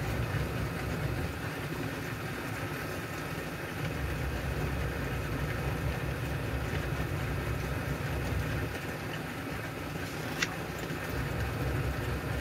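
Steady low machine hum, with pages of a large book being turned and one sharp click about ten seconds in.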